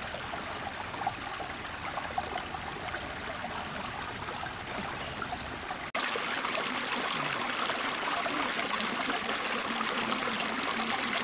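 Shallow rocky stream trickling and running over stones, a steady water sound that becomes louder and closer at a cut about six seconds in.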